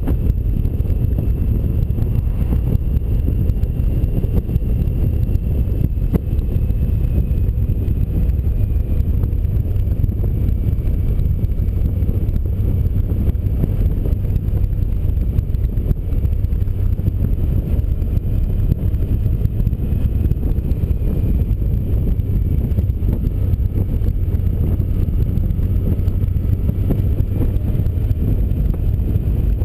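Steady wind rumble and road noise from a Honda Gold Wing touring motorcycle cruising along a highway, with wind buffeting a camera mounted on the bike.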